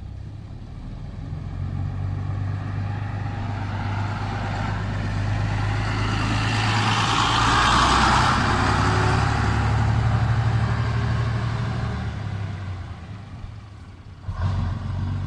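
Vintage diesel city bus driving past slowly, with a steady low engine hum. The sound swells as it comes close, is loudest about eight seconds in, then fades as the bus pulls away. Near the end an engine sound rises sharply again.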